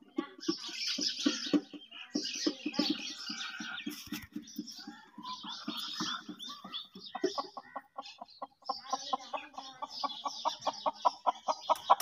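Chickens clucking, with small birds chirping. Partway through, a fast run of clucks begins, about six a second, and grows louder toward the end.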